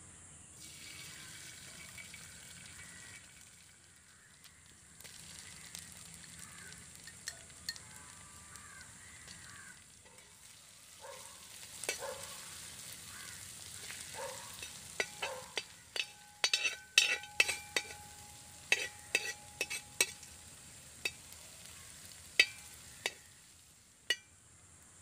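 Chopped ingredients sizzling in a hot aluminium pan, stirred with a steel ladle. From about 15 s in comes a run of sharp clinks as the ladle strikes and scrapes the pan, and some of them leave a brief metallic ring.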